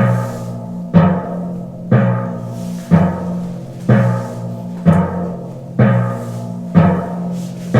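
Suspense background music: a low drum hit, like a timpani, about once a second, each hit leaving a low held note that fades before the next.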